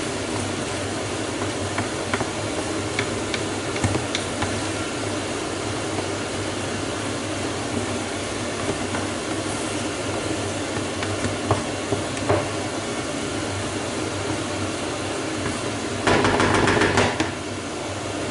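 Bulgur with fried onion and tomato hissing in a frying pan as a wooden spatula stirs it, with scattered scrapes and taps on the pan. About sixteen seconds in comes a louder clatter and scrape lasting a second or so, as the pan is lifted and moved across the hob.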